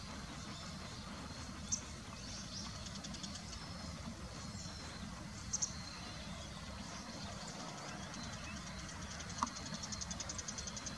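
Outdoor ambience: a steady low rumble with high, rapid twittering of small birds coming and going over it, and three short sharp clicks.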